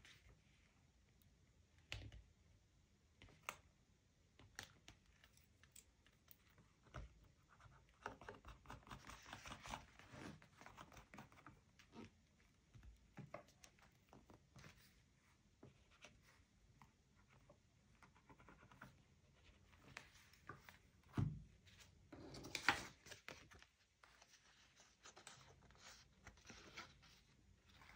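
Faint handling of paper and stationery for a journal: scattered light taps, clicks and short papery rustles and scratches. A dull knock comes about three-quarters of the way through, followed at once by the loudest stretch, a scratchy rustle of paper.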